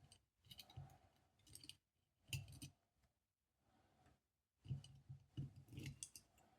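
Faint clicks and light metallic clinks of the small steel levers and spacers of a 7-lever safe lock being lifted out and handled, in four short groups with the longest near the end.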